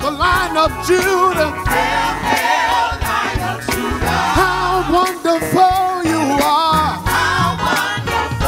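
Live gospel praise-and-worship music: a male lead singer and a group of backing singers singing together over band accompaniment.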